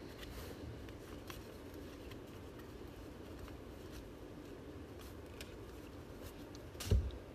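Trading cards and pack wrappers being handled on a table: faint shuffling with small scattered clicks, and one dull thump near the end.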